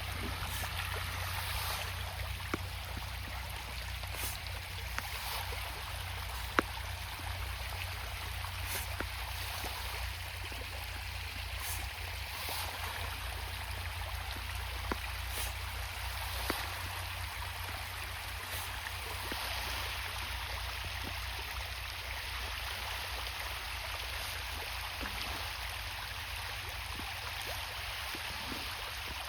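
Water running steadily, with a steady low hum underneath and a few faint clicks.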